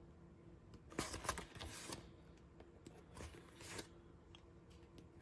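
Photo book pages being turned: two soft paper rustles, about a second in and again about three seconds in, over a faint steady hum.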